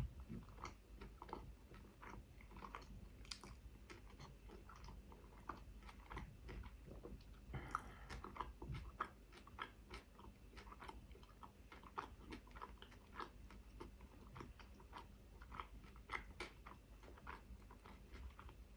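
Close-miked chewing of a chicken shawarma wrap: many small, irregular wet mouth clicks and smacks. A brief, louder burst of noise comes about eight seconds in.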